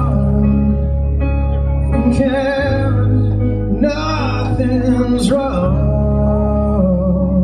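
Live amplified rock song: a man singing lead over acoustic guitar and a backing band, with sustained bass notes that change every two to three seconds.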